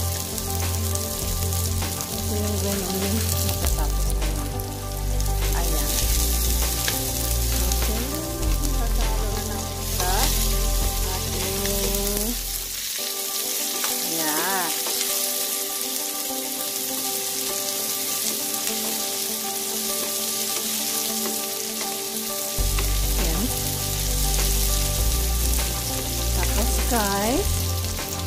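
Pork, garlic and sliced onions sizzling in hot oil in a nonstick frying pan, stirred and scraped with a wooden spatula, a steady dense hiss. A low hum underneath cuts out for about ten seconds midway.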